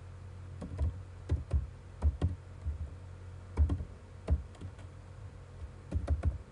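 Typing on a computer keyboard: irregular keystrokes, with a pause of about a second before a quick run of keys near the end, over a low steady hum.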